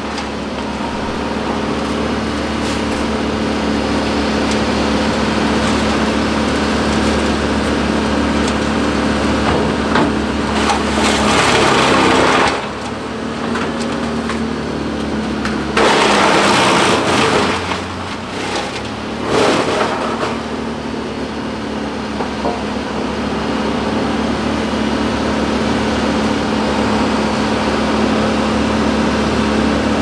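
Bandit wood chipper and Kobelco excavator diesel engines running steadily, with the chipper loudly chewing through wood fed in by the grab in three spells: about ten, sixteen and nineteen seconds in.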